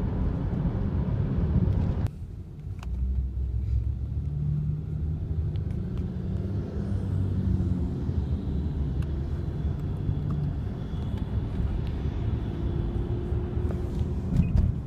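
Low road and engine rumble inside a moving car. A louder rush of noise cuts off abruptly about two seconds in, leaving a steadier, quieter cabin hum.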